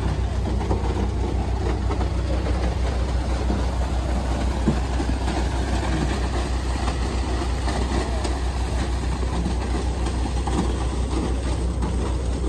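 Transit mixer truck's diesel engine running steadily with a low throb, as its drum turns and concrete pours out down the chute, adding a rough rumble.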